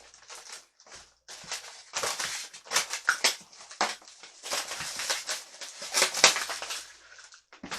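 Packaging rustling and crinkling in irregular bursts as stand-mixer accessories are unwrapped by hand.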